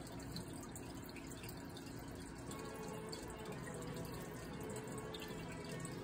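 Faint music over a steady hiss, played back from a computer.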